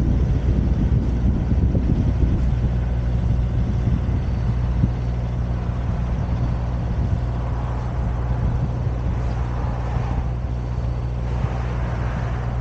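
Motor vehicle engine running at a steady low hum, with a noisy hiss that swells for a few seconds in the second half.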